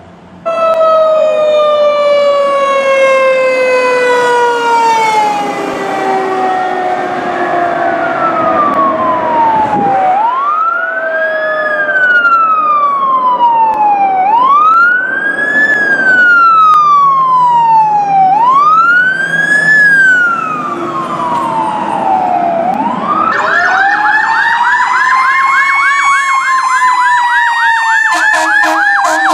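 Fire engine sirens. First a siren slowly winds down, then one rises quickly and falls slowly about every four seconds. Near the end a fast warbling siren takes over, with a steady horn tone joining in.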